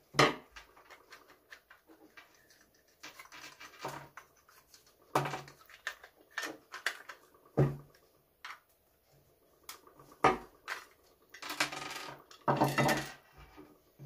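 Plastic housing parts of a Makita cordless multi-tool clicking, knocking and clattering as the tool is pulled apart by hand and pieces are set down on a wooden table. Irregular sharp knocks, with a denser spell of rattling near the end.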